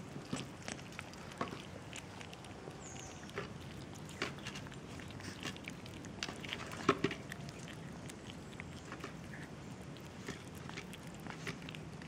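Kittens eating dry cat food from a plastic tray: scattered small crunching clicks of kibble being chewed, irregular, with the loudest about seven seconds in.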